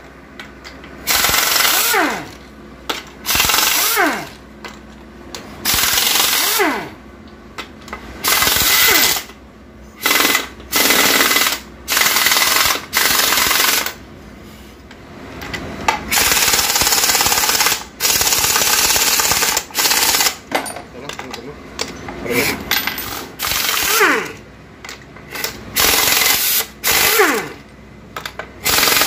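Impact wrench loosening the 12 mm bolts of a Toyota Soluna automatic transmission case. It runs in repeated short hammering bursts of about a second each, and several bursts end in a falling whine as the tool winds down.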